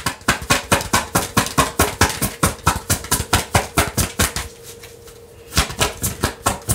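A deck of tarot cards being shuffled by hand: a quick, even run of card slaps and clicks, about seven a second, that stops for about a second near the end and then starts again.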